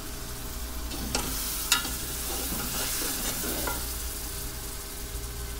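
Spice paste sizzling in a pressure cooker pot as a metal spatula stirs it, with a few sharp scrapes and clicks of the spatula against the pot. The masala is being cooked down with a little water added.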